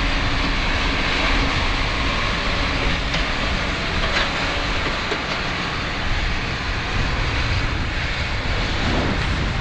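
Strong wind buffeting the microphone: a steady, uneven rumble with a broad hiss over it.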